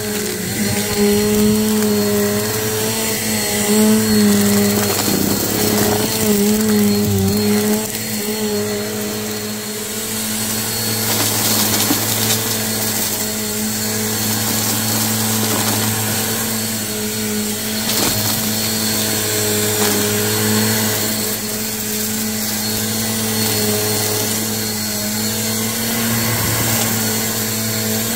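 Bissell Purple Helix upright vacuum cleaner running steadily, a motor drone with a hum over rushing air, wavering a little in the first several seconds, with a few sharp ticks from picked-up debris.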